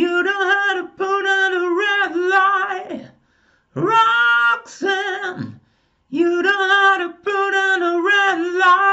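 A man singing unaccompanied in three held phrases with vibrato, separated by short pauses. He sings in a high head voice reinforced with some mix, so that it imitates the effort of chest voice.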